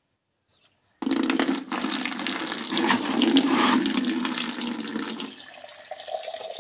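Water from an outdoor tap starts pouring into an empty plastic bucket about a second in, a steady splashing gush. Near the end the stream is caught in a small mug instead, and the sound turns quieter and higher-pitched as the mug fills.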